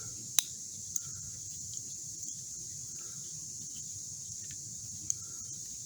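Three sharp clicks from an old, stiff Leatherman-style multi-tool being worked open and shut: the loudest about half a second in, another at about a second, and one near the end. Under them, a steady high insect chorus.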